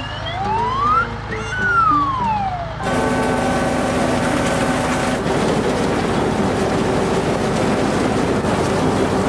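Cartoon machine sound effect over background music. First a whistle glides up and then back down. From about three seconds in, a loud, steady machine noise takes over: the combine harvester running as it drives into the grain.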